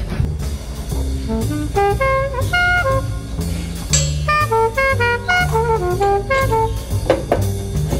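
Jazz background music: a horn melody over bass and drums.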